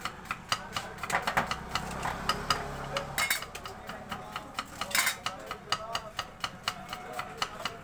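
Knife slicing a red onion against a wooden chopping block: quick, regular chops, about five or six a second.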